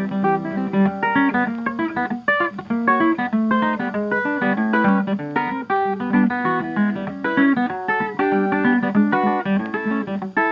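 Ragtime piano music, a busy run of quick notes over a steady lower part.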